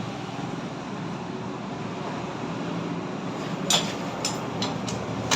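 Steady background hum of the workshop, then about five short, sharp clicks in the last second and a half, the first the loudest. The clicks are parts and tools being handled during scooter engine work.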